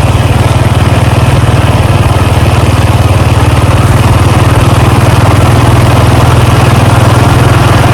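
A vehicle engine running steadily close by: an even low engine note with no change in speed.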